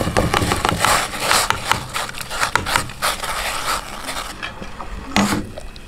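Chopped bamboo shoot being scraped and tipped from a steel bowl into a pot of boiling water: a run of scraping and rubbing with small knocks, dying down after about three seconds.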